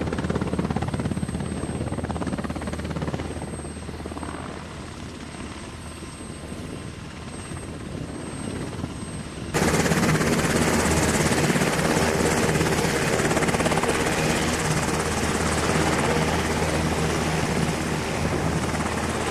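UH-60 Black Hawk helicopter running, its rotors giving a steady low beat as it hovers low. About halfway through the sound cuts abruptly to a louder, brighter rotor noise with the helicopter on the ground and its rotors turning.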